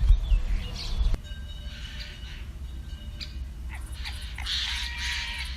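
Birds chirping and whistling, with short calls scattered through, after a low rumble in the first second that stops suddenly.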